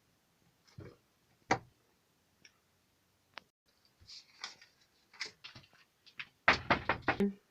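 Irregular knocks and taps, a few scattered at first, then a quick run of louder knocks near the end.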